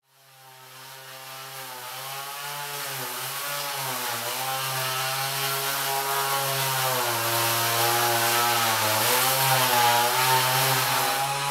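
Handheld electric power tool running against a collage surface. Its motor hum fades in over the first few seconds and dips in pitch several times as it works, with a steady hiss above it.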